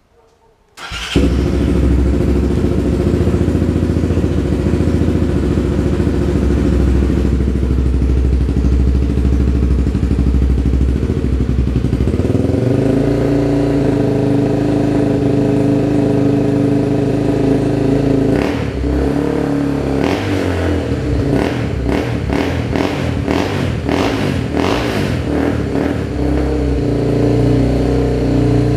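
Honda CB300R's single-cylinder engine with a Coyote Five aftermarket exhaust tip, starting about a second in and idling loud and deep. Around twelve seconds the idle rises, and in the second half the throttle is blipped in a quick series of revs before it settles back to idle.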